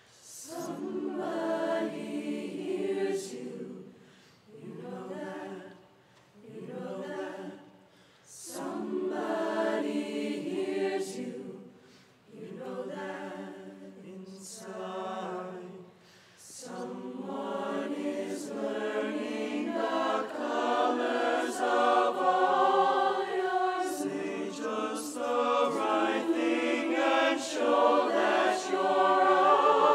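A choir singing in harmony, in short phrases with brief pauses through the first half, then in longer, louder lines from about halfway.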